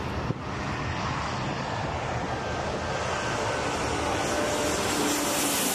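Jet airliner coming in low on final approach: the steady noise of its turbofan engines grows gradually louder as it nears.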